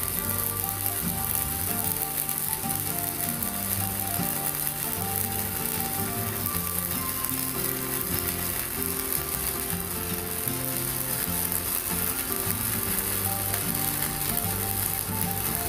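Stick welding arc crackling and hissing steadily as a 4.0 mm electrode burns off from a small inverter welder, under background music with a stepped melody.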